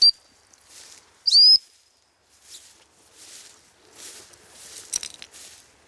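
Footsteps rustling through a field crop at a steady walking pace, about one step every three-quarters of a second, with a few sharp snaps near the end. A loud, short whistle rising in pitch sounds about a second in, after a brief high chirp at the very start.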